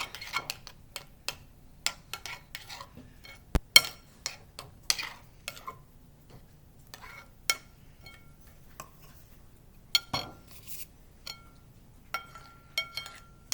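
A spoon clinking and knocking against a bowl at irregular intervals as slime is stirred and baking soda is added; a few of the strikes ring on briefly.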